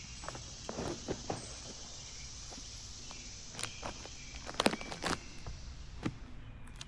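Footsteps of a hiker on a trail: irregular crunching steps, the loudest cluster about two-thirds of the way in, over a steady high outdoor hiss.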